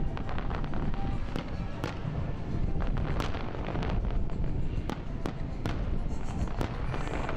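Aerial firework shells bursting in a display: a dozen or so sharp bangs at uneven intervals over a steady rumble, with music playing underneath.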